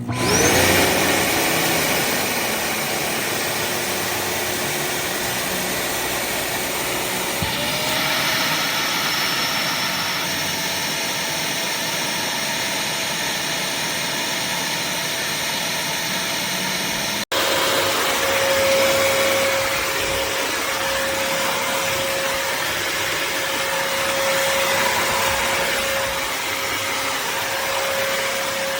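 Bissell CrossWave HydroSteam wet-dry floor cleaner switched on: its motor spins up with a rising whine, then runs steadily. The pitch steps up a little about seven seconds in, and the sound cuts out for an instant around seventeen seconds before running on with a steady hum.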